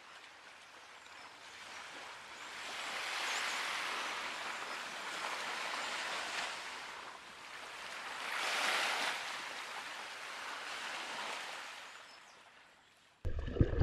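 Sea surf washing onto a sandy beach, a soft hiss that swells and falls away twice. It is cut off abruptly near the end.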